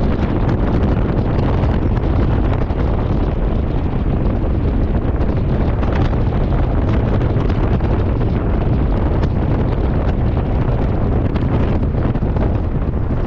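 Wind buffeting the microphone: a steady, loud rumble.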